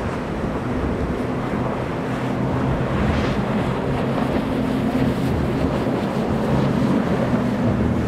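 Twin 350 hp Mercury outboards on a SeaVee 340 center-console running steadily at speed, a low engine drone under the rush of spray and waves off the hull through heavy chop. Wind buffets the microphone.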